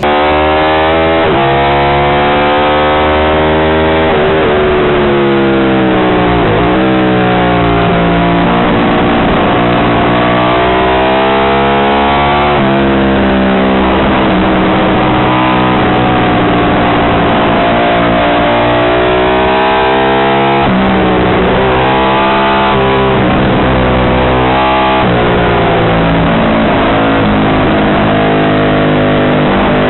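Ducati 750 Imola racer's short-stroke bevel-drive desmo V-twin at full racing effort, heard from onboard: the pitch climbs hard under acceleration and drops sharply at each gear change, falling away several times for corners.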